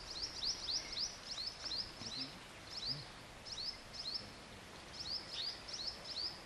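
A bird calling over and over: short, high chirps that each drop in pitch, coming in quick runs of several a second with brief pauses between runs.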